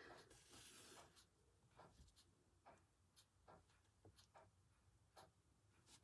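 Near silence broken by scattered faint soft ticks and rustles of hand embroidery: a needle passing through fabric and thread being drawn through.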